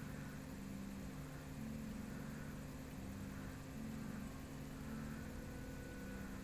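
Steady low hum, with a few low tones that come and go every half second to a second over a faint hiss.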